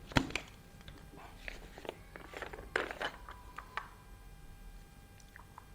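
The lower plastic parts of an Outin Nano portable espresso machine being handled and taken apart: a string of small clicks and knocks, the sharpest just after the start, thinning out after about four seconds.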